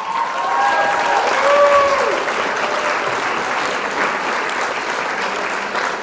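Crowd applause, a steady dense clapping, with some cheering in the first two seconds.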